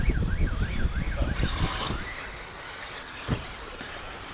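A siren warbling quickly up and down, about three sweeps a second, over a low rumble; it fades out about a second and a half in. A single knock follows about three seconds in.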